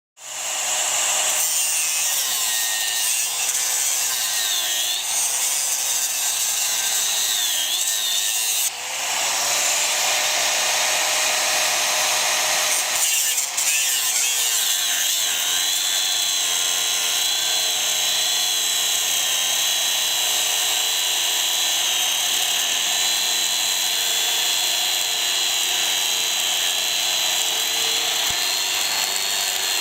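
Angle grinder cutting into 5/16-inch steel angle: a continuous grinding hiss over a motor whine whose pitch sags and recovers as the disc bites in, easing briefly about nine and again about thirteen seconds in.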